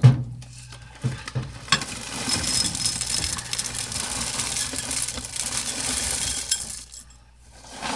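A knock at the start, then French Toast Crunch cereal pouring out of the box's plastic liner bag: a steady rattling rush of small dry pieces with crinkling plastic, which stops about seven seconds in.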